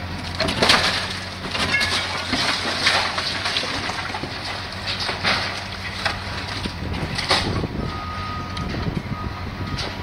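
Caterpillar hydraulic demolition excavator running steadily while its jaw attachment crunches and tears at the building's concrete, panels and metal, giving a string of sharp cracks and clattering debris.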